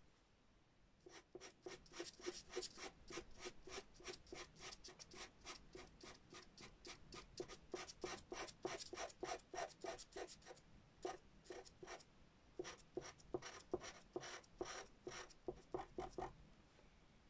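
Derwent pastel pencil scratching on textured pastel paper in quick, short, repeated strokes, several a second, as fur is drawn. The strokes start about a second in, pause briefly just past the middle, and stop shortly before the end.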